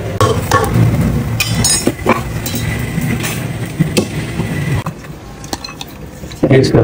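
A metal spoon clinking against a steel pot and dishes as rice is served, over a steady low rumble. About five seconds in, the rumble drops away and only a few lighter clinks remain.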